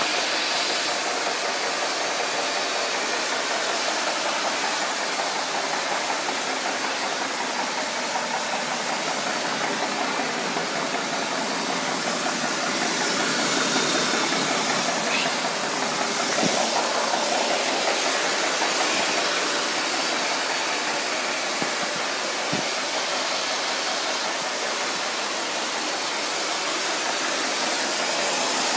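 1932 Chevrolet five-window coupe's inline-six engine idling steadily, a little louder around the middle.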